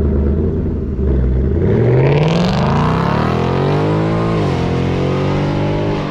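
2020 Mustang GT's 5.0 Coyote V8 with an added H-pipe exhaust accelerating hard: the engine note rises steadily for about two and a half seconds, drops suddenly at a gear change, then holds a steadier note.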